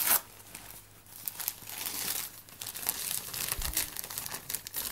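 Gift-wrapping paper crinkling and tearing as a child rips open a present: a short burst of rustling, a pause of about a second, then busy, irregular crinkling.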